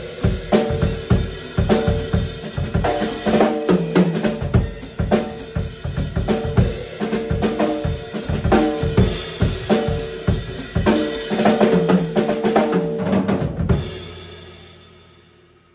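Acoustic drum kit played in a steady groove of kick drum, snare and cymbals. The playing stops about fourteen seconds in, and the drums and cymbals ring on and fade away.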